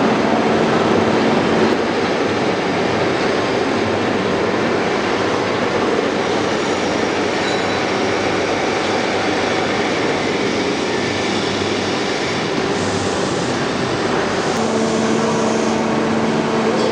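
Industrial machinery running with a steady, loud mechanical noise. A low hum with an overtone drops out about two seconds in and comes back near the end.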